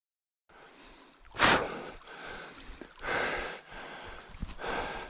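A rider breathing hard: loud, gasping exhales roughly every one and a half seconds, the strongest about a second and a half in.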